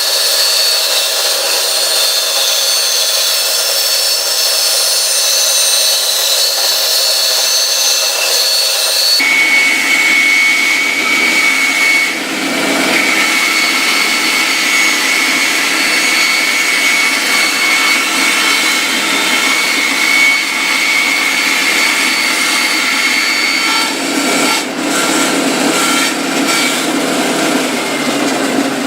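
Inca woodworking bandsaw running and cutting a wooden blank as it is turned on a circle-cutting jig's pivot pin. The tone of the saw changes abruptly about nine seconds in, then carries on steadily.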